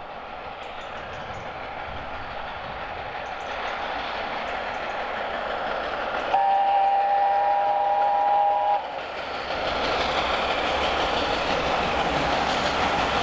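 LNER A4 steam locomotive No. 60009 'Union of South Africa' approaching with its train, the running noise steadily growing louder. About six seconds in, its three-chime whistle sounds once as a steady chord for about two and a half seconds, then cuts off.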